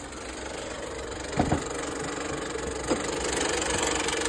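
Honda car engine running with a steady tone and two sharp knocks, about a second and a half and three seconds in, getting a little louder from the first knock on. The noise comes from the A/C compressor clutch, which is breaking apart and shedding bits of metal.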